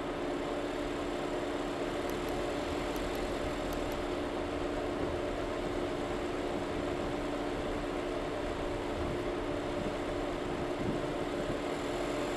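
Car being driven at a steady pace: engine and tyre noise with a constant hum of several steady pitches. A few faint high ticks come about two to four seconds in.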